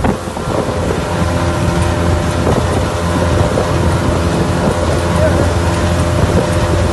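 Motorboat engine running steadily at speed, with the rush of water and wind over the boat.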